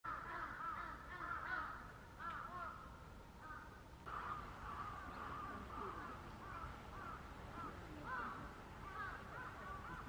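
Grey heron chicks calling from the nest: many short calls overlapping in a continuous chatter. The chatter drops off and then comes back louder about four seconds in.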